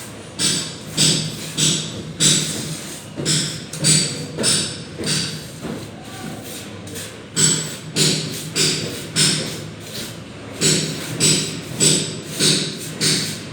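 Plastering trowel working plaster onto a wall: repeated short scraping slaps, about two a second, with a brief pause a little past the middle.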